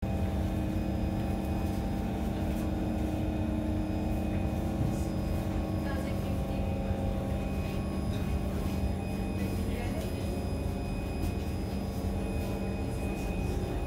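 Cabin sound of a Kawasaki C151 metro train creeping backwards to its stopping mark after overshooting it: a steady electrical hum from the train's motors and equipment. One of the hum tones fades out about halfway through.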